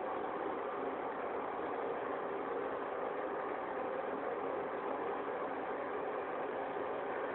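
Water running steadily from a sink tap, an even rushing hiss.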